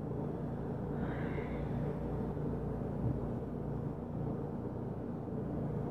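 Steady low rumble with a faint hum under it, and one dull thump about three seconds in.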